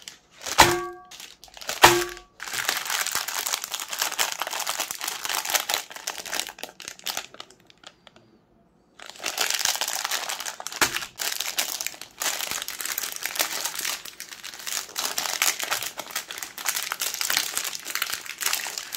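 Dense crackling and crunching as chocolate-coated Magnum ice cream bars are crushed in a meat grinder, breaking off for a moment about halfway. Two short pitched tones sound about a second apart at the start.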